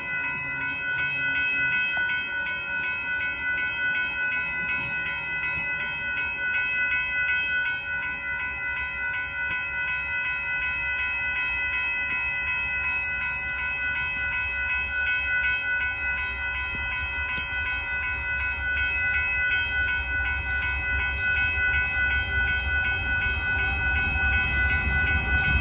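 A railroad crossing bell rings steadily and without a break. Under it is the low rumble of an approaching Union Pacific auto-rack freight train, growing louder toward the end.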